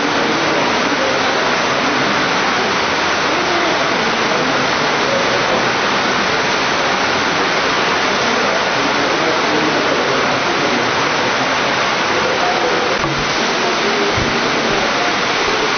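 Loud, steady hiss like rushing water, with a faint murmur of voices underneath.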